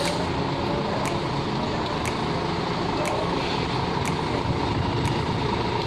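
Large coach's diesel engine running steadily at low speed as the bus creeps forward, with a short sharp tick about once a second.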